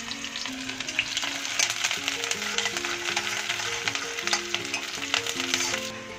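Chopped onions sizzling in hot mustard oil in a kadhai, stirred with a steel spatula that clicks and scrapes against the pan. Soft background music with a simple stepping melody plays underneath.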